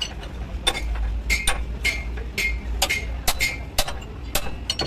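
Hand hammer striking a ring spanner on a nut at a truck's front steering knuckle, driving the spanner round: about ten sharp metallic blows with a ringing tone, roughly two a second.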